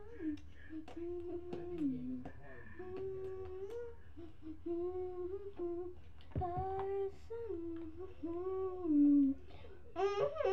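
A young girl humming a wandering tune in long held notes, with a few light clicks from a toothpaste tube and toothbrush being handled. Near the end the voice gets louder and higher.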